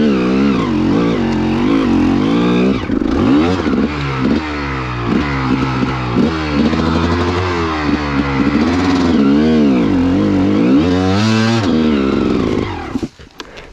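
2002 Gas Gas EC 300 two-stroke single-cylinder dirt bike engine revving up and down as the throttle is worked hard over rough ground. About a second before the end the engine cuts out.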